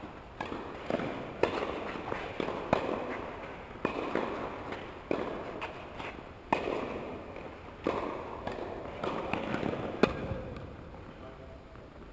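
Tennis balls being hit and bouncing on the courts: a string of sharp pops about a second apart, each ringing on in the echoing indoor tennis hall, dying away near the end.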